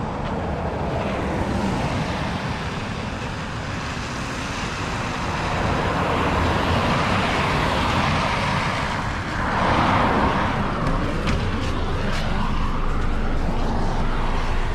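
Ikarus EAG E94 city bus approaching and pulling in to the stop over wet road, its engine and tyre noise growing louder, with a whine that falls and then rises again about two-thirds of the way through as it slows and stops. Near the end a few short clicks and knocks as passengers board.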